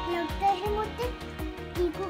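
Background music with a steady beat, about four beats a second, under a bouncy melody.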